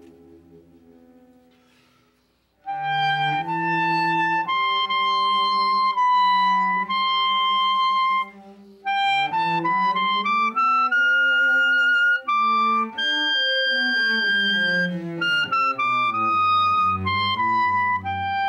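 Music: a held chord fades away over the first couple of seconds, then a slow melody of long held notes on a woodwind instrument begins loudly and carries on, with some notes gliding into the next.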